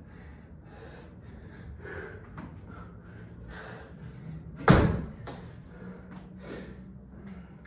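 One heavy thud about four and a half seconds in, with a short ringing tail, amid hard breathing from a tired athlete.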